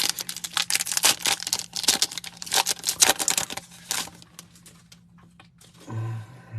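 A foil trading-card pack being torn open and its wrapper crinkled: dense crackling and tearing for about four seconds, then a few scattered rustles.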